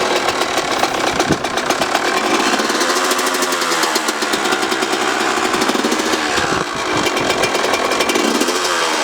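Small engine running with a fast, even firing beat, revved up and back down twice.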